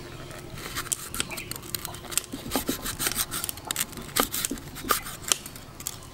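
Large kitchen knife slicing palm fruit flesh into strips on a round wooden chopping block. The blade cuts through and knocks on the wood in a run of irregular taps, a few each second.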